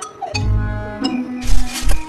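Cartoon soundtrack: music with sound effects, including a short squeaky vocal glide near the start and heavy low thuds about a second and a half in.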